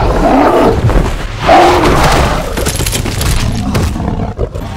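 Loud fantasy battle-scene sound effects: two drawn-out, wavering cries in the first two seconds over a steady low rumble, then scattered sharp knocks and thuds.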